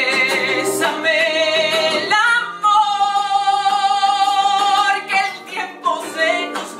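A woman singing a slow, drawn-out melody with vibrato, holding one long note from about two and a half seconds in for about two seconds.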